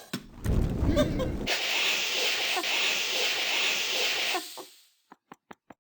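A long drawn-out burp: a low rumble for about a second, trailing into a steady hissing rasp that stops about four and a half seconds in.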